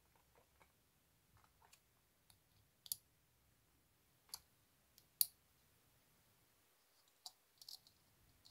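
Scattered light clicks and taps of small metal parts being handled while a JBL 035Ti tweeter is put back together, including an Allen key working on its faceplate screws. About ten irregular clicks, the sharpest about three seconds in and just after five seconds in.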